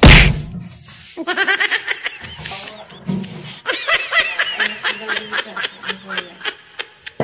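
A wooden window shutter slams shut at the start. Then high-pitched rapid laughter, a short burst about a second in and a longer run from about four seconds in.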